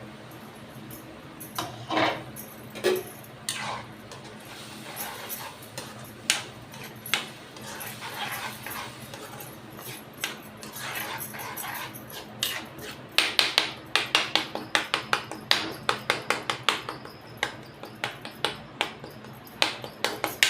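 A spoon clattering and scraping against a cooking pot as the watered tomato gravy is stirred, with quick taps about three to four a second in the second half.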